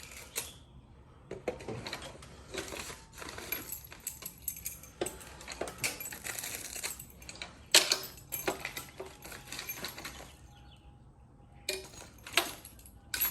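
Irregular metallic clinks, taps and light rattles of small hard objects being handled, with one sharper clack about eight seconds in.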